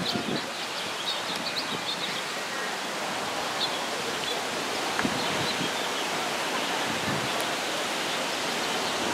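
Steady outdoor background hiss, with a few faint high bird chirps in the first couple of seconds.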